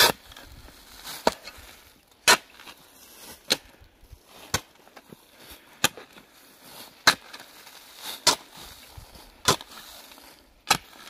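Steel shovel blade chopping down into root-laced turf and soil, one sharp strike roughly every second, about ten strikes in all.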